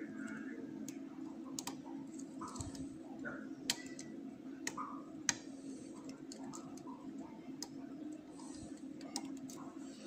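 Irregular small metallic clicks and ticks of a lock pick and tension tool working inside a brass lock cylinder, over a steady low hum.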